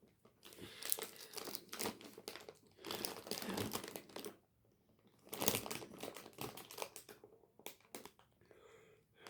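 Plastic snack packaging crinkling and rustling as it is handled, in irregular bursts with a short pause about halfway through.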